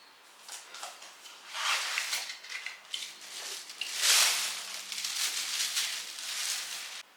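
Irregular rustling and scraping of something being handled at close range, in uneven bursts, loudest about four seconds in, and cutting off abruptly near the end.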